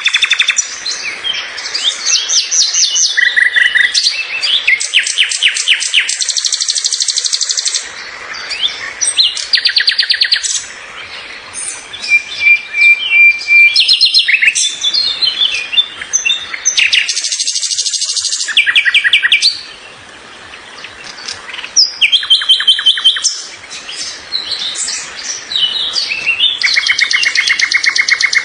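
Songbirds singing: fast trills and quick runs of repeated high chirps, several phrases overlapping and following one another without pause.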